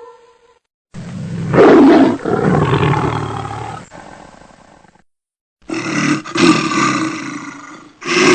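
An animal roaring in separate edited clips: a long roar from about a second in, then after a short gap another that cuts off suddenly, with a third starting near the end.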